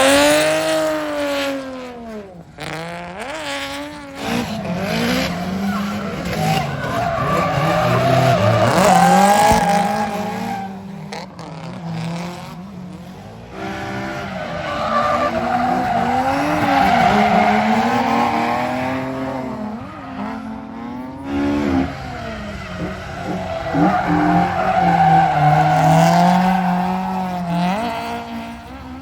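Drift cars sliding past with engines revving up and down on and off the throttle and tyres squealing, in about four loud swells.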